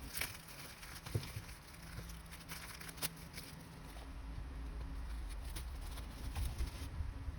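Album packaging being handled: a few light taps and clicks over a low steady hum.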